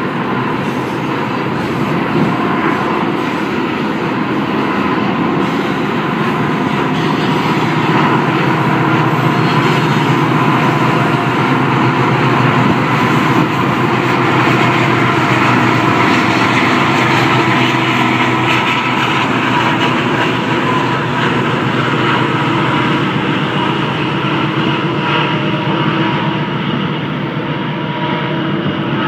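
Union Pacific diesel-electric freight locomotives and their train passing close by, a steady engine drone that swells a little through the middle as the locomotives go past.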